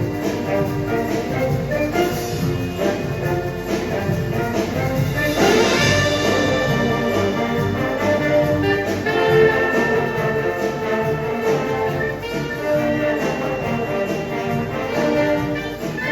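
Marching showband playing live: brass carrying the melody over a steady drum beat, with a cymbal-like crash about five seconds in.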